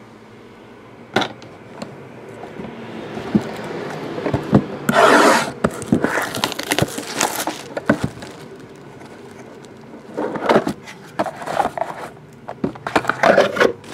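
A trading card box being opened and its packaging handled by hand: scattered knocks and clicks, and rustling and scraping bursts of wrapper and cardboard, the loudest about five seconds in.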